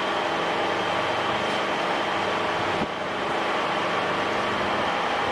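Pellet-making machine running steadily with a constant mechanical hum. The level dips briefly nearly three seconds in.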